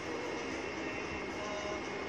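Steady background noise with a faint, constant high whine.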